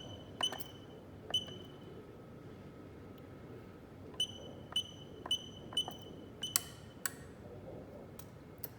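Keys pressed on a JP-LT universal wireless garage door keypad, each press a click with a short high beep, several in a row with a pause in the middle, as a code is entered to operate the paired Genie opener.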